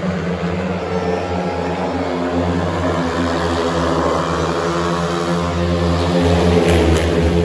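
A pack of four speedway motorcycles racing around the track, their 500 cc single-cylinder methanol engines running at high revs in a loud, steady drone that grows louder towards the end as the bikes come closer.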